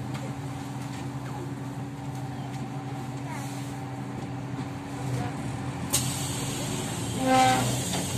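Kyiv-12.03 trolleybus standing at a stop with a steady electrical hum from its on-board equipment. About six seconds in comes a hiss of released compressed air that fades over a couple of seconds, then a short beep near the end.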